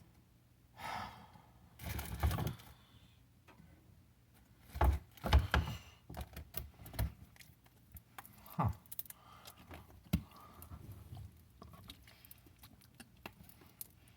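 Objects being handled and moved about: scattered clicks, knocks and rustles, with a few heavier thumps about five seconds in and a brief rustle near the start.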